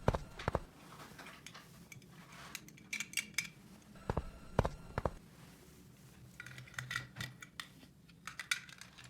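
Small plastic toy pieces being handled, with a few sharp knocks as pieces are set down and clusters of light clicks and rattles in between.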